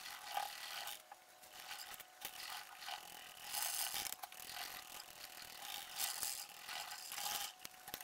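Paintbrush scrubbing and dabbing silicone into gauze on a silicone mould: faint, irregular scratchy strokes.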